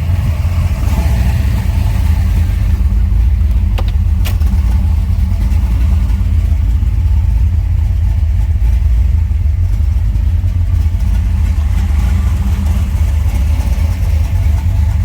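A 383 stroker small-block V8 running steadily through a Flowmaster exhaust in a 1979 Chevrolet Corvette, a deep even rumble with no revving. Two brief clicks sound about four seconds in.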